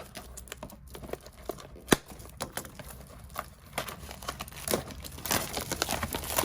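Plastic shrink wrap crinkling and tearing as it is slit and pulled off a sealed trading-card display box, a run of irregular sharp crackles that grows busier near the end.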